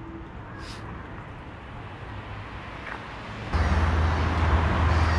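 Outdoor street ambience, quiet at first with a brief high chirp under a second in. About three and a half seconds in it switches abruptly to louder road traffic noise with a steady low rumble.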